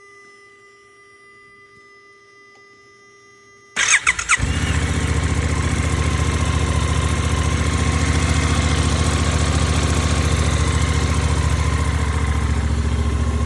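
A faint steady high-pitched tone, then about four seconds in the Suzuki V-Strom 800DE's parallel-twin engine is cranked by the electric starter, catches, and settles into a steady idle.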